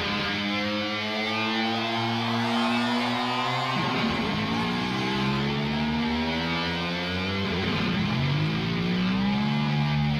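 Distorted electric guitar solo: long sustained notes that bend and slide in pitch, with a sudden change of note about four seconds in.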